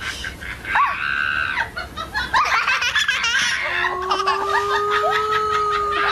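High-pitched laughter, choppy and repeated, used as a comedy sound effect; in the second half a long held tone rises slightly under the laughing.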